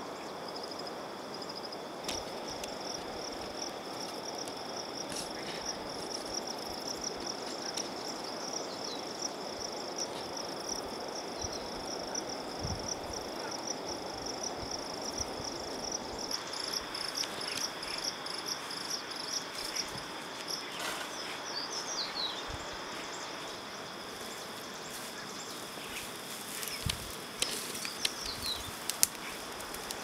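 A steady insect chorus: a high pulsing trill over a second, lower steady tone. A few short chirps come in midway, and a few sharp knocks sound near the end.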